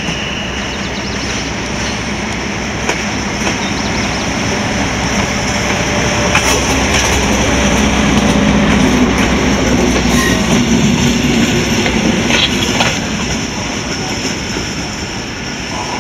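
Ganz Árpád railbus passing by with its diesel engine running and its wheels clicking over rail joints. It grows louder to a peak about halfway through, then fades.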